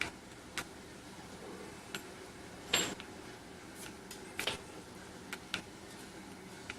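Plastic buttons and joystick of a wireless gamepad clicking irregularly while it is played, about nine sharp clicks with the loudest nearly three seconds in, over a steady low room hum.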